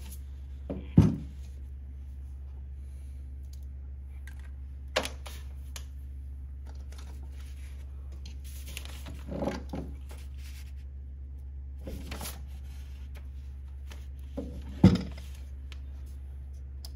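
A compact magnetic drill press being handled on a tabletop: five knocks and thumps as it and its cord are moved, the loudest about a second in and another near the end.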